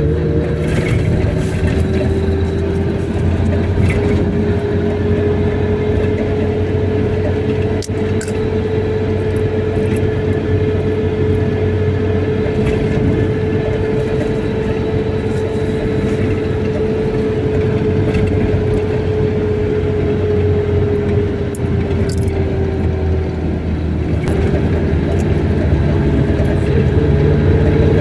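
Car driving: a steady engine and road rumble with a held engine tone that drifts slightly up in pitch and back down.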